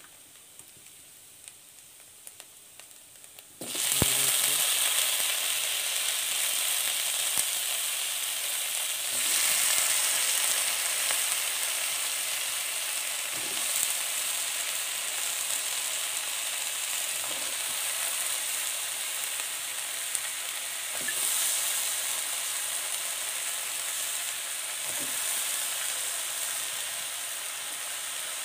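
Chopped ridge gourd tipped into hot oil in an iron wok, setting off a sudden sizzle about four seconds in. The frying sizzle then carries on steadily, with a few faint knocks as more pieces go in.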